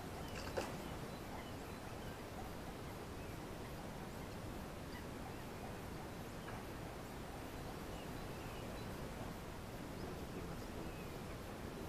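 Quiet outdoor ambience with short, faint bird chirps scattered through it, and one sharp knock about half a second in.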